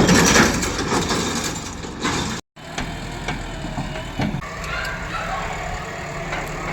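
Heavy vehicle engine idling steadily, with a brief total break in the sound about two and a half seconds in.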